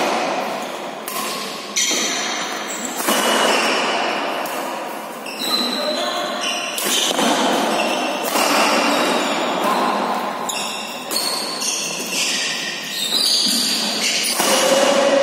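Badminton doubles rally in an echoing hall: rackets striking the shuttlecock with sharp smacks every second or two, with short high squeaks from shoes on the court between the hits.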